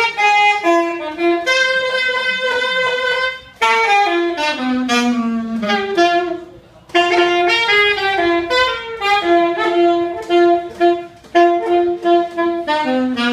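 Unaccompanied alto saxophone playing a melodic solo in phrases broken by short breaths: one phrase steps down to a long held low note, and a later one repeats the same note several times before dropping low again near the end.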